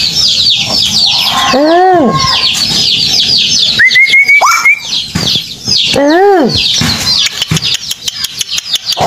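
Birds calling: a loud arching call that rises then falls in pitch comes twice, about four seconds apart, over a steady chatter of high chirps. Around four seconds in, a short rising whistle holds for about a second, and near the end comes a quick run of clicks.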